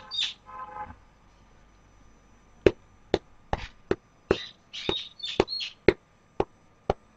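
Footsteps of shoes climbing concrete stairs, sharp steps about two a second with some scuffing between them, starting a few seconds in.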